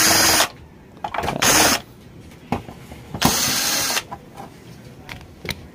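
Electric screwdriver running in three short bursts, backing screws out of a TV's plastic back cover, with small clicks of handling in between. The screws are rusted.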